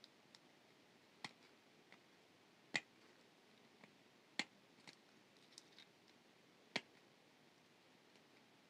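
Small sharp clicks of jewelry pliers working a wire loop: four louder clicks spaced a second or two apart, the last the loudest, with a few fainter ticks between.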